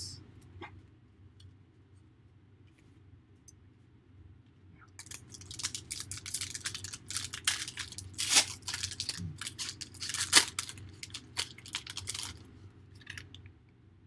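A trading-card pack's foil wrapper being torn open and crinkled. After a few quiet seconds there is a dense run of crackles and rips lasting about seven seconds, with two louder tears partway through.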